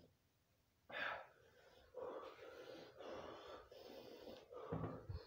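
A man breathing hard through the burn of a Carolina Reaper chip: a sudden sharp intake of breath about a second in, then a run of heavy, hissing breaths, with a short louder low sound near the end.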